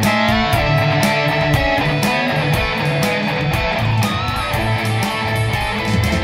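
Background music: guitar-led music with a steady beat.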